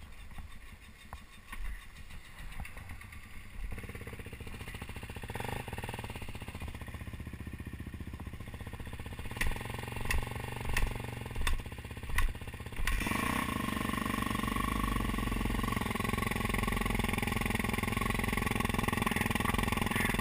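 Dirt bike engine running at low revs, with five sharp short sounds about two-thirds of a second apart, then suddenly louder and steady as the bike pulls away and is ridden.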